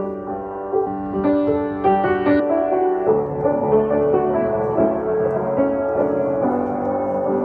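Piano or keyboard playing slow, sustained chords of a worship song, with no singing.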